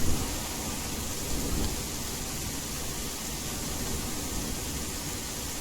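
Steady rain hiss with low, distant thunder rumbling underneath.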